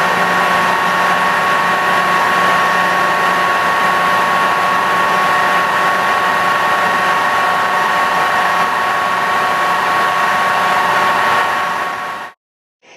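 Ingersoll CNC planer mill running and cutting metal with its right-angle milling head: a steady mechanical whine with a low hum under a constant noisy hiss. It cuts off abruptly near the end.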